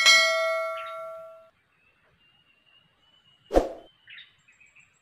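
Notification-bell sound effect of a subscribe-button animation: a bright bell ding that rings out and fades over about a second and a half. About three and a half seconds in comes a short thump.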